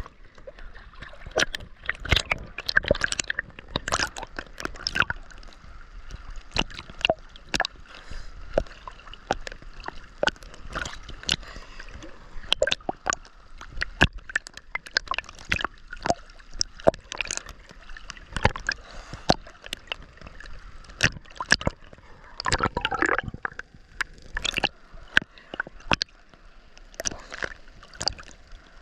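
Ocean water sloshing, gurgling and splashing close by, with many irregular sharp splashes throughout.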